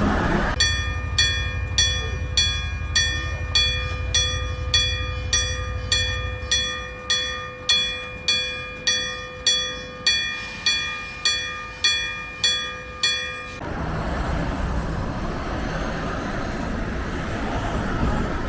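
Mechanical warning bell of a Randen tram level crossing, struck about 1.7 times a second and ringing with several clear tones, then stopping abruptly about two-thirds of the way in. A low rumble runs under the first few seconds, and a steady wash of noise follows once the bell stops.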